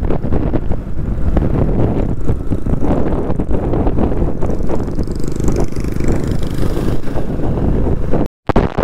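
Wind buffeting the microphone of a moving motorcycle, with engine and road noise beneath. A brief hiss sweeps down a little past the middle, and the sound cuts out for a moment near the end.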